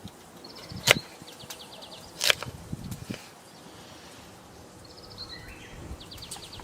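Outdoor ambience with a small bird giving short, rapid high trills several times, and two sharp knocks about a second and a half apart.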